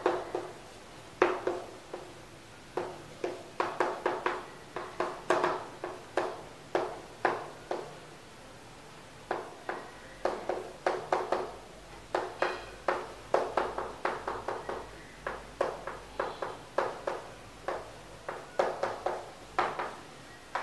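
Chalk tapping and scraping on a blackboard as Japanese characters are written by hand: quick, irregular strokes, with a pause of about a second and a half near the middle.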